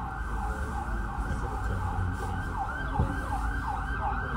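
Emergency vehicle siren sounding, switching about two and a half seconds in to a fast yelp of quick rising-and-falling sweeps, about three a second, over a steady low rumble.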